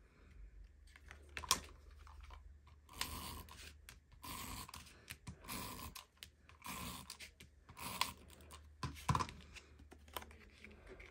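Mini tape runner drawn across the back of a paper panel in about five short strokes, laying down adhesive tape. Paper is handled with a few sharp taps and clicks, one a little before the strokes begin and one after they end.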